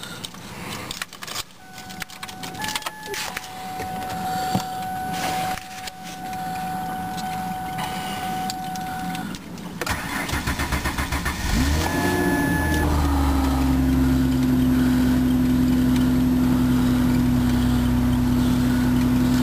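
2004 Ford Taurus's 3.0 L V6 cold-started in freezing weather. After some clicks and a steady high tone, the starter cranks for about two seconds. The engine catches with a brief rise in revs about twelve seconds in, then settles into a steady cold fast idle.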